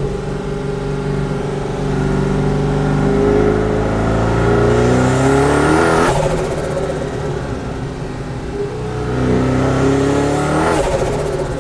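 Mazzanti Evantra Millecavalli's twin-turbo LS7 V8 pulling hard twice, its pitch rising with a turbo whistle above it. Each pull ends in a sudden lift-off, about halfway through and again near the end, with the turbos fluttering as the throttle closes.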